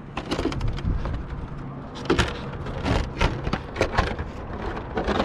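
Sharp plastic clicks and knocks as an Arrma Senton RC truck's hard plastic body is pressed onto its mounts and the body clips are pushed in, about half a dozen separate clicks over a steady low hum.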